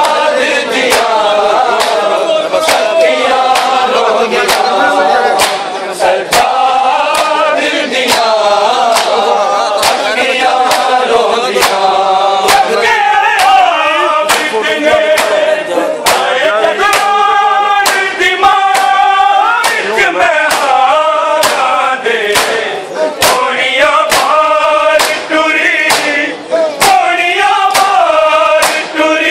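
A group of men singing a Punjabi noha, a Shia lament, in chorus, over a steady rhythm of sharp beats.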